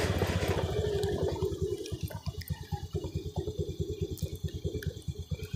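Motorcycle engine running at low revs, a fast even putter. Wind noise on the microphone fades about a second in.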